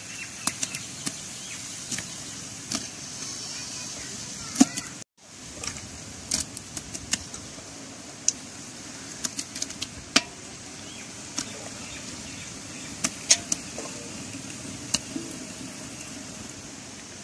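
Wood fire crackling under a cooking pot: irregular sharp snaps over a steady low hiss. The sound cuts out for a moment about five seconds in.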